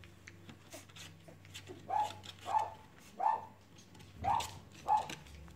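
Cavalier King Charles Spaniel puppy yapping: five short, high barks, spaced a little under a second apart, beginning about two seconds in.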